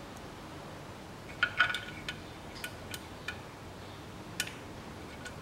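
Irregular small metallic clicks and clinks, a quick cluster about a second and a half in and single ones after, as the bolts of a new CVT oil filter are started by hand against the transmission's valve body.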